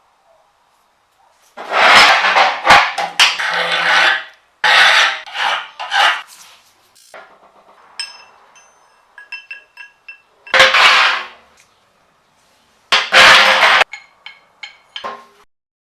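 Metalworking sounds on a vise: several bursts of scraping and rubbing with silent gaps between them, and a run of sharp metallic clinks that ring briefly about eight to ten seconds in.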